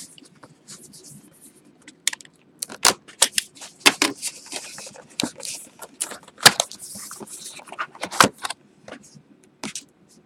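Cardboard trading-card hobby box being opened and handled by hand: an irregular run of sharp clicks, scrapes and rustles of the lid and inner flaps, with a few knocks as the box is moved on the table.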